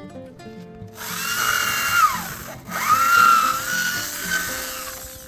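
Electric power drill run twice, a motor whine over hiss, each run falling in pitch as it winds down; the second run is longer. Background music with plucked guitar notes plays underneath.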